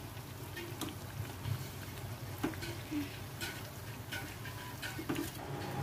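Urad dal vadas deep-frying in hot oil: a light sizzle with scattered pops and crackles, over a steady low hum.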